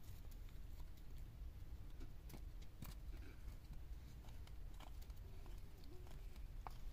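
Quiet outdoor ambience: a steady low rumble with a few scattered sharp clicks, and a faint wavering call about five seconds in.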